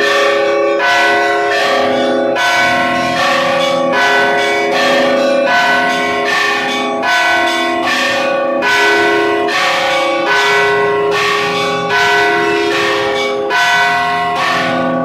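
Russian Orthodox church bells rung by hand from a bell tower in a continuous festive peal. Several bells of different pitches are struck in a quick, steady rhythm of several strikes a second, their tones ringing on and overlapping.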